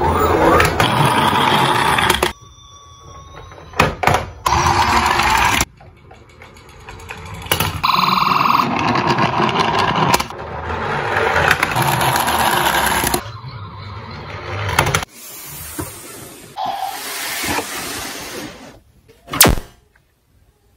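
Toy ambulances' electronic siren sound effects playing in several short stretches, cut one after another, mixed with plastic clicks and clatter from the toys. One sharp knock near the end.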